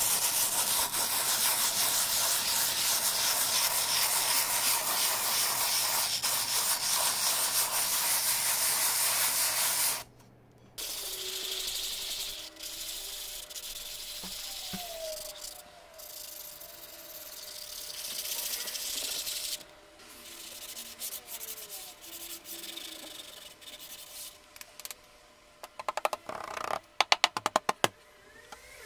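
Sanding sponge rubbed by hand over a white-coated stretched canvas, giving a loud, steady, scratchy hiss for about the first ten seconds. After that the strokes are quieter and come and go. Near the end there is a quick run of about eight sharp taps.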